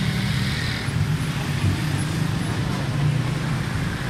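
Steady low rumble of road traffic, with faint voices in the background.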